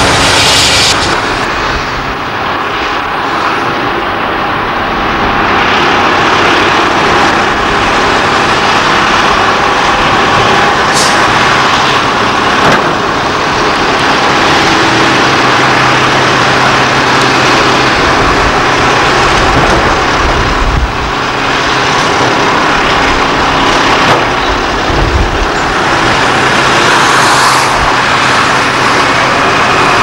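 Heavy construction machinery working: the diesel engines of cable excavators and other site machines running steadily, a loud continuous noise with a low engine hum underneath.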